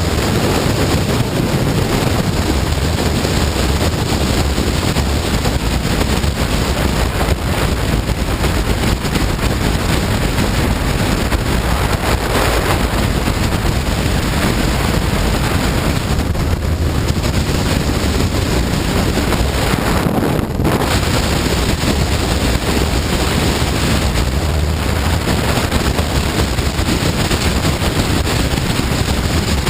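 Steady wind rush buffeting the microphone while riding a Honda CBR954RR sportbike, with the motorcycle's engine running underneath.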